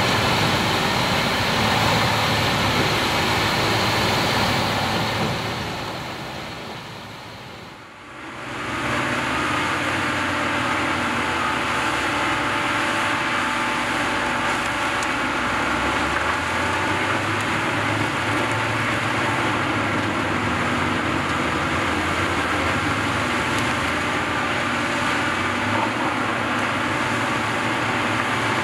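Peterson 1700D horizontal grinder running steadily under load, grinding waste wood, with the low drone of its engine under a dense grinding noise. The sound fades out about six seconds in and comes back a couple of seconds later.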